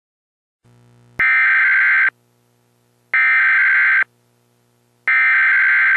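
Emergency Alert System SAME header: three buzzing digital data bursts of about a second each, separated by one-second gaps.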